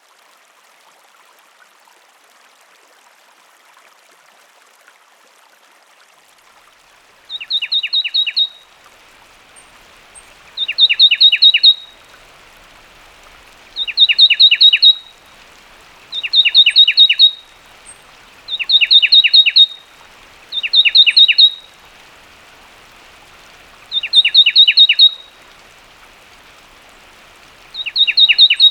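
Fulvous wren singing: eight short phrases of rapid, high notes sweeping down in quick succession, each about a second long and repeated every two to three seconds, beginning several seconds in. A steady faint background hiss like a forest stream runs underneath.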